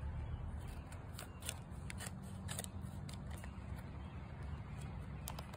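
Scissors snipping open a pet treat bag: a run of short, sharp cuts at uneven intervals, with the bag crinkling in the hands.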